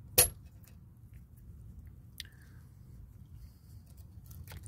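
Cutters snipping through a plastic zip tie: one loud, sharp snip just after the start, then a fainter click about two seconds later, with quiet handling noise between.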